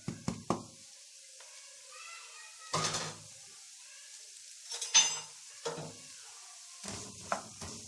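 Onions frying in hot oil in a pan: a faint, steady sizzle, with a spoon knocking and scraping against the pan several times as they are stirred.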